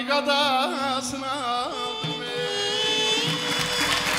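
Azerbaijani ashiq music: saz with a wavering, richly ornamented melody over a steady lower note, closing on a long held note. Applause begins near the end.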